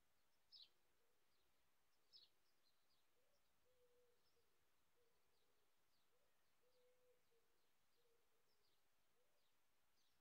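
Faint birdsong: a scatter of short, high chirps, the two loudest about half a second and two seconds in, over a lower call that repeats in short phrases through the middle.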